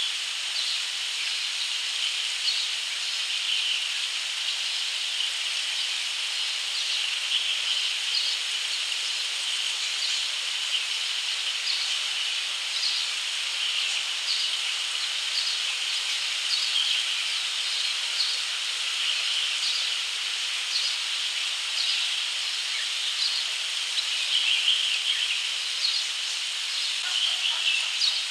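Steady high-pitched hiss of a cicada chorus, with short high chirps from barn swallow fledglings every second or so, busier near the end.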